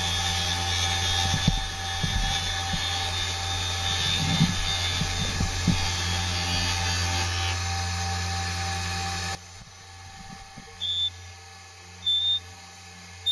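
The CNC3018's spindle motor runs steadily, spinning a plastic rod while the lathe tool cuts a profile turn, with a few sharp knocks during the cut. About nine seconds in, the sound drops off abruptly, and short, high tones follow every second or so.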